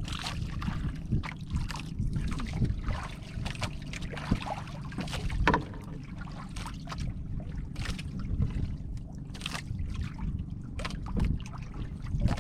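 Water lapping and sloshing against a small boat's hull in irregular splashes, over a steady low rumble of wind buffeting the microphone.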